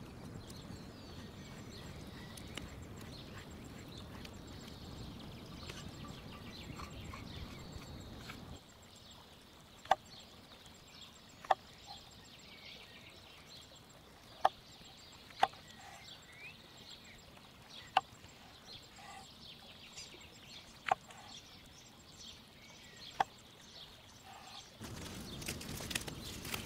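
A knife slicing through button mushrooms and knocking on a wooden cutting board: seven sharp cuts, one every second or two, over faint birdsong. A steady low rustle comes before the cuts, and a louder crackling stretch starts near the end.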